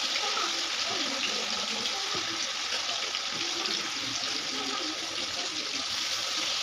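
Marinated fish pieces frying in hot oil in a steel kadhai: a steady, crackling sizzle that goes on as more pieces are laid in.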